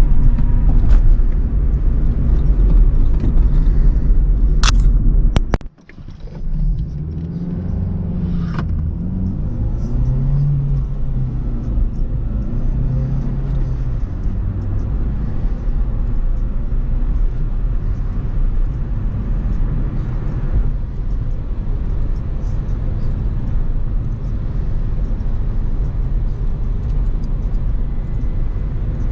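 Acura RSX on the move: a steady low rumble of engine and road noise. It breaks off abruptly about six seconds in, then resumes with the engine pitch rising and falling a few times.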